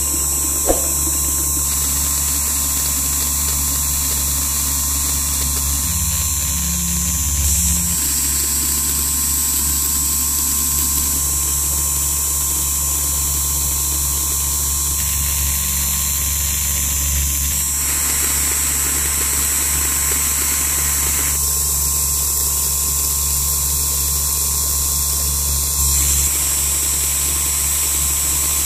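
Small DC hobby motor driving a miniature water pump, running steadily with a hum and a high whine. A single click about a second in.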